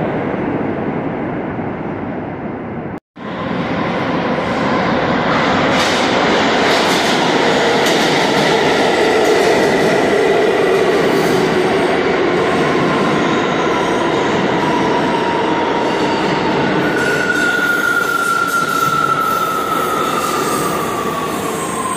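New York City subway train running through the station: a steady rumble with clacking of wheels over the rails. The sound cuts out sharply for a moment about three seconds in. A high metallic squeal slides down in pitch near the end.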